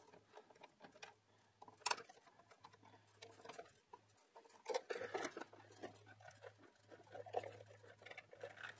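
Faint clicks and scrapes of a screwdriver turning plastic screws out of a plastic enclosure lid, with one sharper click about two seconds in.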